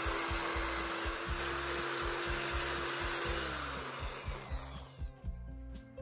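Bosch electric drill running steadily with its bit grinding out a hole in a water-tank lid to make it bigger. It is released about three and a half seconds in and spins down, falling in pitch. Background music with a steady beat plays underneath and is heard alone near the end.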